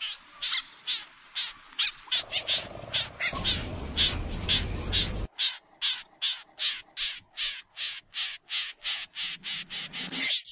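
Snipe calling: a long series of short, high, sharp notes at about three a second, quickening toward the end. A low rumbling noise runs underneath from about two to five seconds in.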